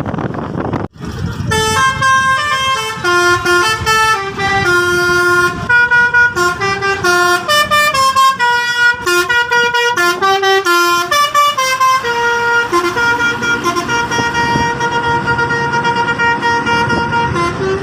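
Indonesian 'telolet' multi-tone bus horn playing a full tune. Its notes step up and down every third to half second, and after about twelve seconds it settles into one long held chord.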